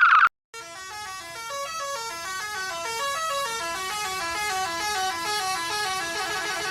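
Synthetic horn-like tones, many layered at once, each stepping up and down in pitch in quick staircases, making a dense, gradually louder clash of notes.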